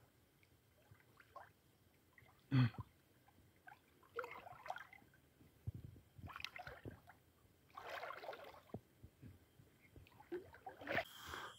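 Faint splashing and sloshing of shallow river water in short bursts as a person wades and presses a ball of fish bait into the sandy bottom, with the sharpest splash about two and a half seconds in.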